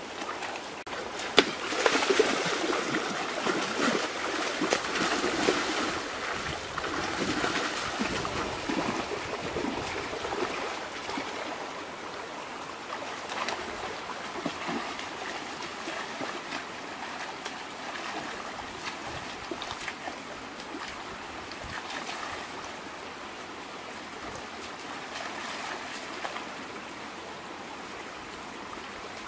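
Shallow rocky stream running, with irregular splashing and sloshing as a person wades and grabs in the water, busiest in the first ten seconds. One sharp knock about a second and a half in.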